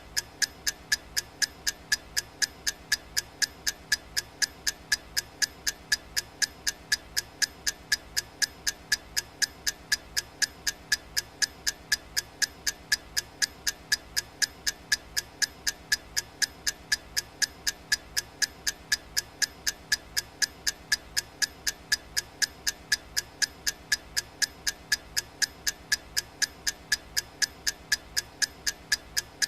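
Countdown timer's clock ticking, about two sharp, identical ticks a second at a steady, even pace.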